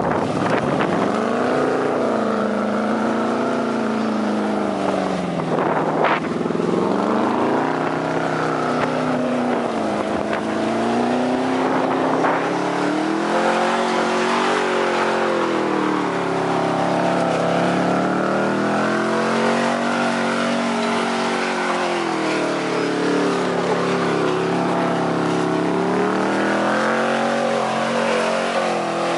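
Chevrolet Silverado pickup's engine running under throttle as the truck spins donuts in mud. Its pitch swells and falls every few seconds as it circles close around.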